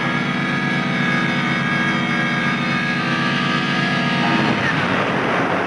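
Aircraft engine running with a steady, even drone. About four seconds in it gives way to a rougher rushing noise.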